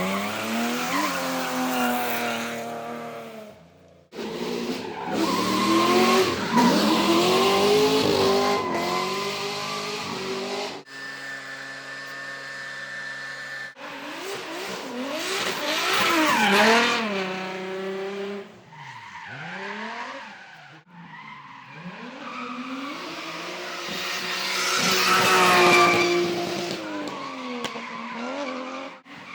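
Drift cars at full throttle, engines revving up and down with tyres squealing and skidding, over several abruptly cut clips. Near the middle one engine holds a steady note for a few seconds.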